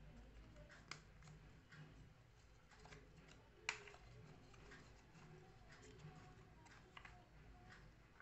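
Very faint paper handling: a zigzag-folded paper strip being pressed and pulled open by hand, with small crackles and one sharper click a little past three and a half seconds in.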